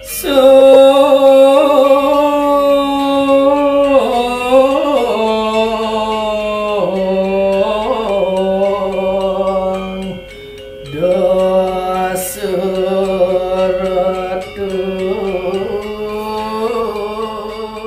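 A single voice sings a slow devotional chant in long, held notes that bend and glide from one pitch to the next. There is a short pause about ten seconds in, and the singing fades out near the end.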